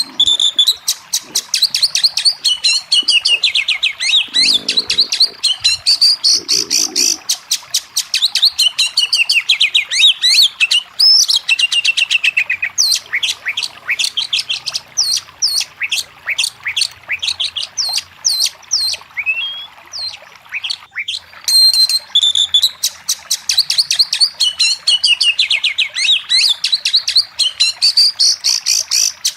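Oriental magpie-robin (kacer) singing a fast, continuous, varied song of sharp chirps, rapid trills and falling whistled notes.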